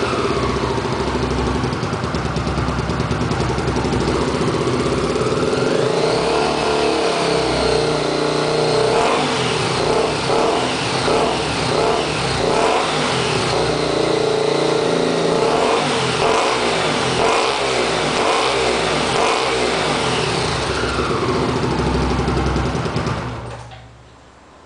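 Honda CBX 250 Twister single-cylinder engine revving through an RS1 aftermarket exhaust, its rumble rising and falling over and over in quick blips of the throttle. The engine sound drops away near the end.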